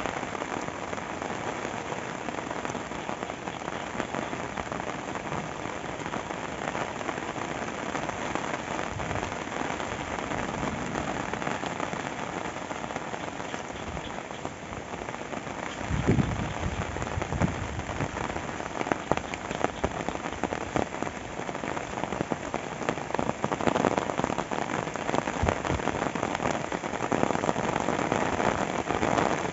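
Heavy rain falling steadily. A few low thumps come about halfway through, and the rain grows a little louder near the end.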